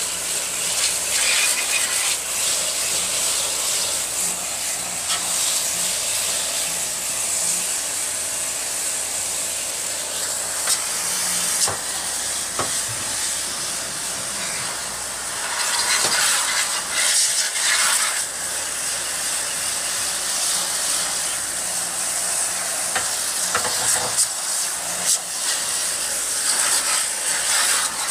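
A pressurised water jet from a copper-tube nozzle hissing steadily as it is sprayed into the fins of an aircon outdoor unit's condenser coil during cleaning. It gets louder for a couple of seconds about halfway through.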